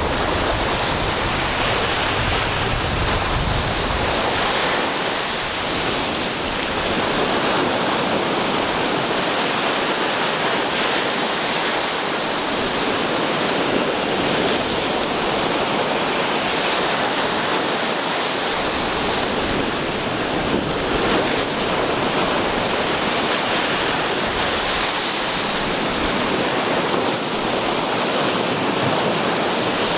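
Ocean waves washing onto a shore in a steady, continuous rush, swelling gently every few seconds, with wind buffeting the microphone in the first few seconds.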